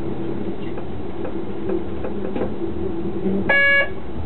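Cab of an Alstom Coradia LINT 41 diesel railcar rolling slowly: a steady engine hum with light knocks from the wheels on the track. About three and a half seconds in, a short, loud, pitched signal tone sounds for about a third of a second.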